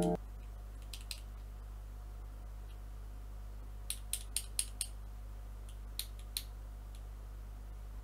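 Small sharp plastic clicks as a small white plastic keyboard part is handled and unpacked: two clicks about a second in, a quick run of five about halfway, and three more later. A steady low hum sits underneath.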